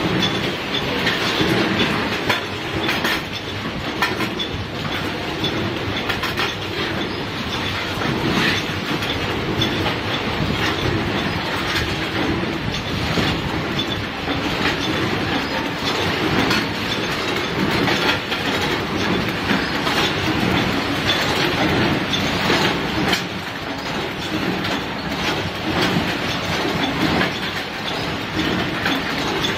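Automatic cartoning machine running while packing metal hinges: a steady mechanical clatter full of quick clicks and knocks.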